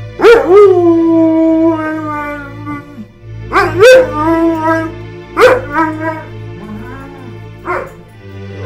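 A dog howling along to music: four howls, each one sweeping sharply up and then sliding down into a long held note. Steady low sustained music notes sound underneath.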